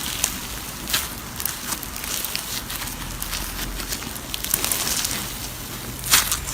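Slime being squeezed and worked by hand, giving a dense run of small crackles and pops, with a louder cluster of pops near the end.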